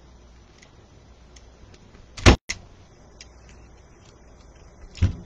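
Sharp snaps of cutters snipping through the ties on a wreath: a quick double snap about two seconds in and another pair near the end, over a faint low hum.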